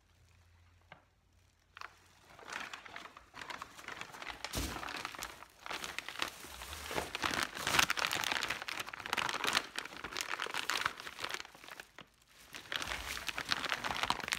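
Clear plastic bag crinkling and rustling as it is handled around a light bar, starting about two seconds in, with a brief pause near the end.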